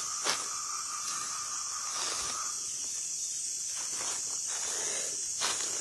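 Night insects chirring steadily in a high-pitched, hiss-like drone, with a faint steady tone underneath that stops about two and a half seconds in.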